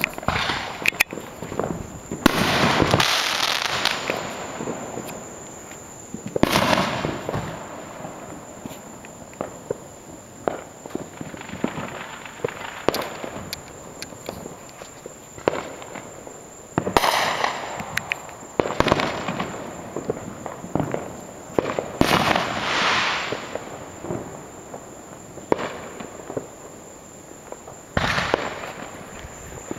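Fireworks going off: half a dozen loud bangs, each trailing off in a second or two of echoing rumble, with scattered smaller pops and crackles of firecrackers in between.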